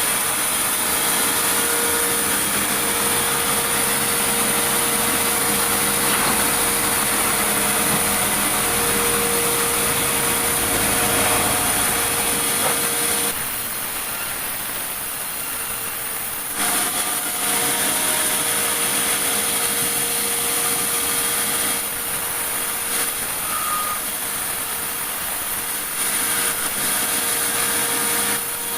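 Sawmill machinery running steadily with a high whine. The sound drops back about halfway through and again near the end, then picks up each time.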